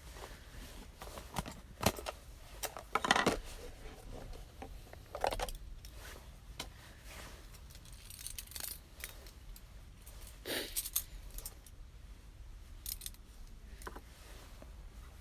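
Irregular clicks, clinks and rustling clatter of small objects being handled, loudest around two and three seconds in, with further clatters about five and ten seconds in.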